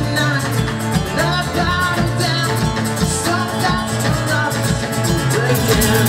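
A live band playing a song: nylon-string acoustic guitar, electric bass and a drum kit with cymbals, with a male lead vocal sung into a microphone over it.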